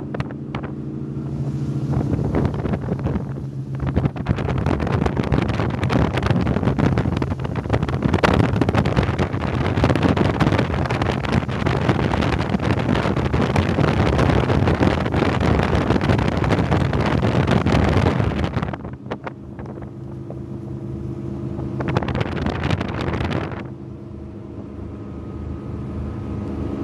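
Fountain Lightning powerboat's engines running at speed with the stern drives down. For most of the time a loud rush of wind and water buries the engine note. It eases about two-thirds of the way through, and the engines' steady drone comes through again, broken by one more short rush.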